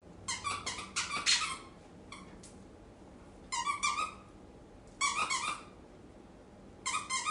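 Squeaky dog toy squeaking in quick groups of several high-pitched squeaks, with short pauses between the groups.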